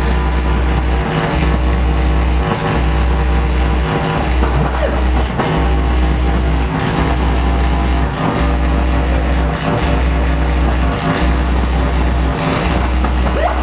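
Experimental drone music from an electric organ and a modular synthesizer: sustained organ chords over a noisy wash, with a deep bass tone pulsing on and off about every second and a bit.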